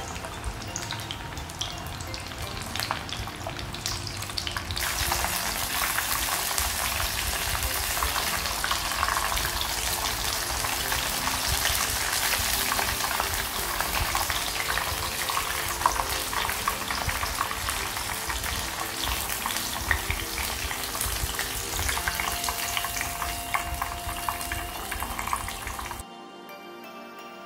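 Panko-breaded scampi deep-frying in hot oil: a dense, steady crackling sizzle of bubbling oil that grows louder about five seconds in and stops shortly before the end, under soft background music.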